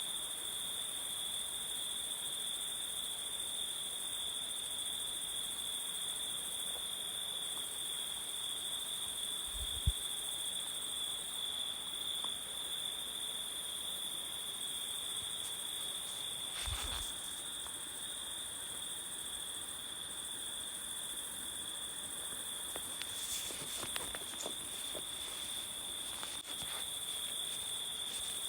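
Jungle ambience: a steady, high-pitched insect chorus of crickets, with a brief low thump about a third of the way in, another a little past halfway, and a few faint clicks near the end.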